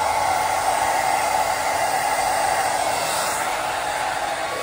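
Handheld hair dryer blowing steadily, aimed at hair on the head and moved around it.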